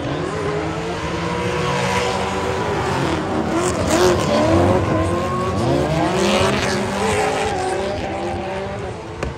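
Drift cars' engines revving hard, the pitch rising and falling as the drivers work the throttle through a tandem drift, over screeching, smoking tyres.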